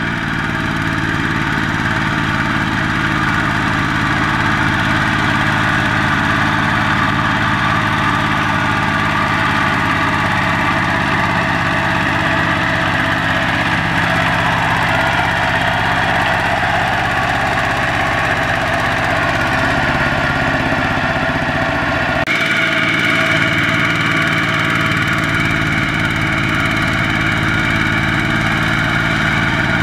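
Two-wheel tractor's single-cylinder diesel engine running steadily under heavy load, hauling a loaded trailer through deep mud and puffing black smoke. About two-thirds of the way through, the engine note shifts abruptly.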